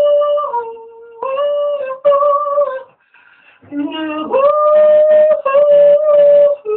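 A man singing a cappella, holding long wordless "ooh" notes in a small room. There is a brief breath-pause about three seconds in before the next held note.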